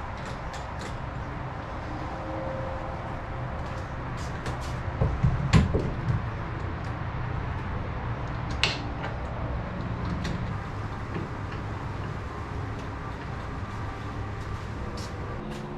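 Scattered knocks and clatter of hard objects being handled, with a few loud thumps about five to six seconds in, over a steady low background hum.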